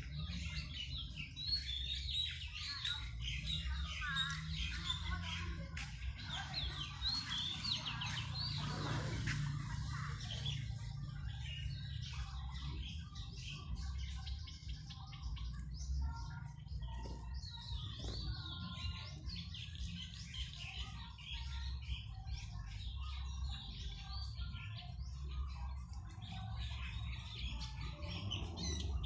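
Several small birds chirping and twittering in quick, overlapping calls, over a steady low rumble.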